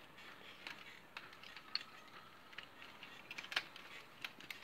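Faint, irregular light clicks and crackles of dry giant cane (Arundo donax) stakes being split with a knife and bent down at a basket's rim.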